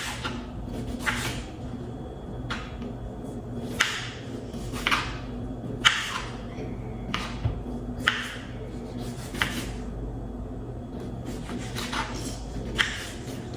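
Kitchen knife slicing vegetables on a cutting board, a short sharp knock about once a second at an uneven pace.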